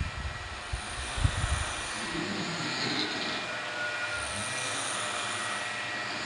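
A person snoring, with one long rough snore about two to three seconds in over a steady background hiss.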